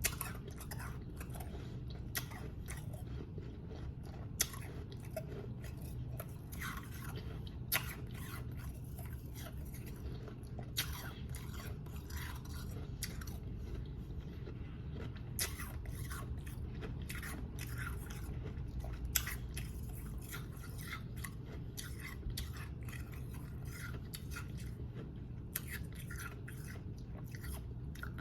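Close-up crunching and chewing of powdery snow ice, with sharp, irregular crunches as it is bitten and ground between the teeth, over a steady low hum.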